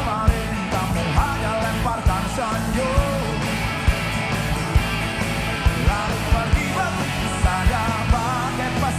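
Live rock band playing: a drum kit with steady hits, electric and acoustic guitars, and a male voice singing over them.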